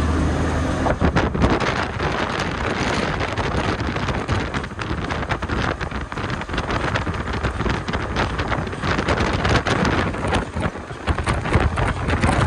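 Wind buffeting the microphone over the noise of a truck driving at motorway speed. A low steady engine hum fades about a second in as the gusty wind noise takes over.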